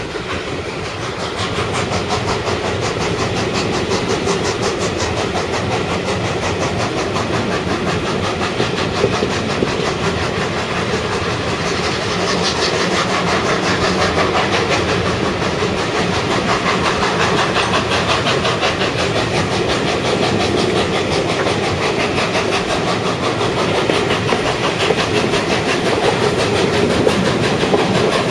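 Peppercorn A1 three-cylinder steam locomotive 60163 Tornado working its train away from a start, heard from a carriage window behind the engine: a fast, steady beat over the continuous running noise of the carriages on the rails, growing a little louder about two seconds in.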